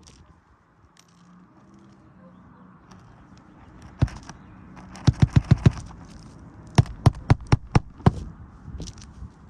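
Hammer driving roofing nails through an asphalt shingle's nailing strip: a single knock, a quick run of about six strikes, then five more at about four a second and one last blow.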